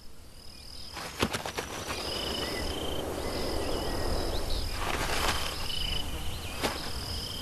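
Insects trilling: steady high trills at two pitches, each lasting about a second and coming again and again, over a soft hiss, with a few faint clicks.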